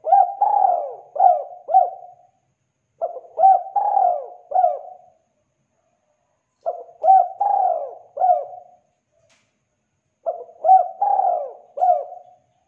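Spotted dove cooing: four phrases about three and a half seconds apart, each a quick run of three or four coos.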